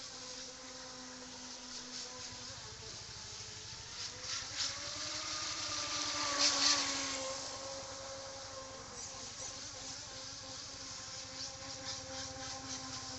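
Homemade RC catamaran's motor whining steadily as the boat speeds across the water. About halfway through it passes close: the whine rises and then falls in pitch, and it peaks with a hiss of spray.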